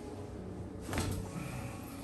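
A single soft thump about a second in, over faint background music.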